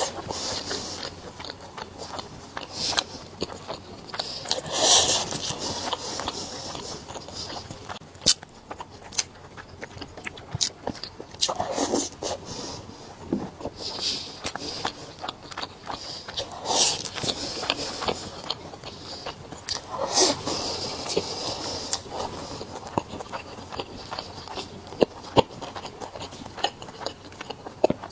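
Close-miked eating sounds: a person biting and chewing food, with many short sharp clicks and crackles and a few louder noisy bites.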